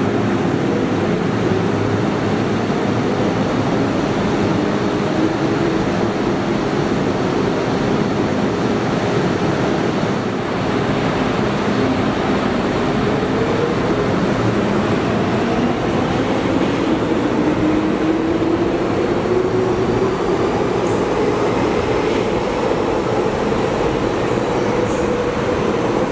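Metro Cammell EMU subway train: a steady hum as it stands at the platform, then, about halfway through, a whine rising steadily in pitch as the train accelerates.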